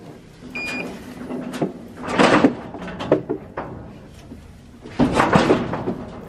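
A single short electronic beep from the digital livestock weighing indicator as one of its keys is pressed, followed by loud metallic rattling and banging from the steel cattle crush, loudest about two seconds in and again near the end.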